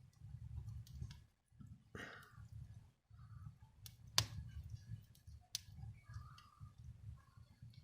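Wood fire burning in a fireplace: a low, steady rumble of flames with scattered faint crackles and two sharp pops about a second and a half apart, the first the loudest.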